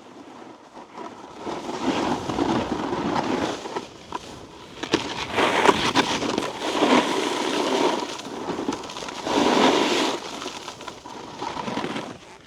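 Snowboard edges scraping over icy, slushy snow in a series of turns: four long swells of scraping, with a few sharp clicks.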